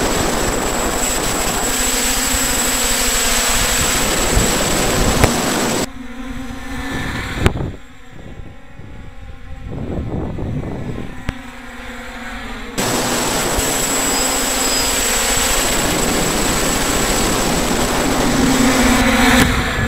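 Hexacopter's six electric motors and propellers running in flight, heard loud and steady from a camera carried on the craft, with a thin high whistle over the rotor noise. From about six to thirteen seconds in, the sound cuts to a quieter, more uneven stretch of rotor noise and wind heard from the ground.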